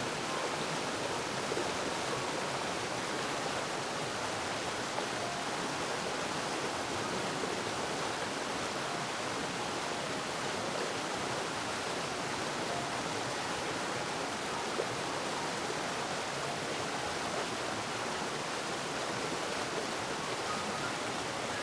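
Steady, even rush of flowing water, like a stream or small waterfall.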